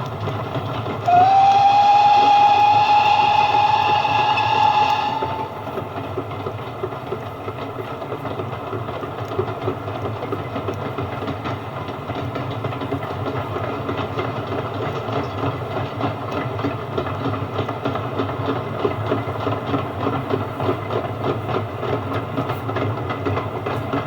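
A steam locomotive's whistle blows once, about a second in, for about four seconds, its pitch rising slightly at the start. Under it and after it comes the steady rumble of a train running on the rails, with clickety-clack from the wheels.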